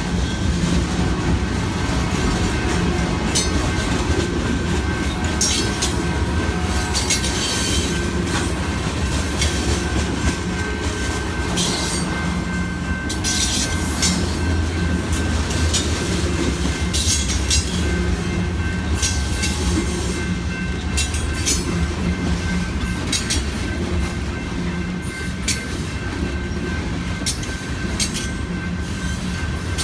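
Freight train's cars rolling past at speed: a steady rumble with wheels clicking over rail joints and faint wheel squeal.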